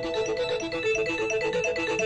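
Nokia 6288 mobile phone playing a polyphonic ringtone: a quick melody of short notes stepping up and down.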